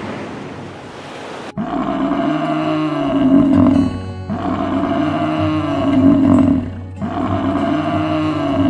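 Surf washing on a beach for the first second and a half, then a buffalo bellowing three times over soft background music: long, low, moaning calls of about two and a half seconds each, each rising and then falling in pitch.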